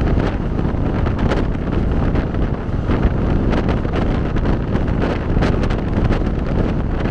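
Passenger train running at speed: a steady rumble and rush of air, with wind buffeting the microphone.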